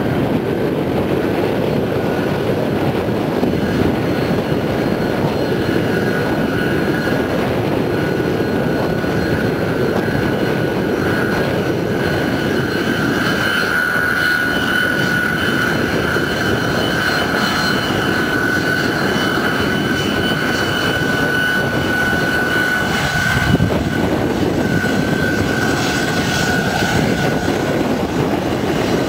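Jet airliner taxiing on its rear-mounted engines: a steady whine over a continuous rushing jet noise, briefly louder about three-quarters of the way through.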